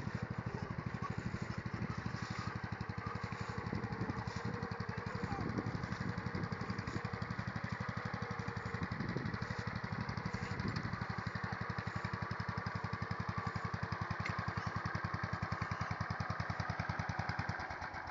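Wheel Horse garden tractor's engine running steadily with an even, rapid putter, then dying away near the end.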